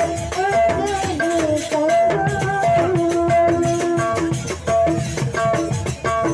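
Rudat folk music: a woman singing a wavering melody into a microphone over drums and percussion keeping a steady beat, the melody settling into held notes about three seconds in.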